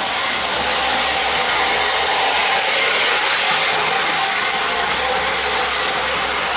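MTH RailKing Amtrak O-scale model locomotive running on its track, giving a steady mechanical whir and rumble.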